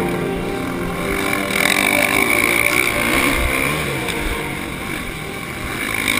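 Four-stroke 450 motocross bike engine running at speed, heard through a helmet-mounted action camera with wind noise.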